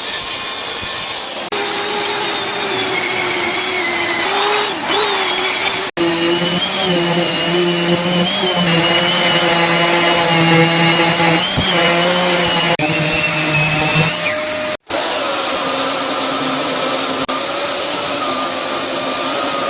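Electric woodworking power tools running, a steady motor whine over rushing noise that shifts a little in pitch. The sound cuts out briefly twice.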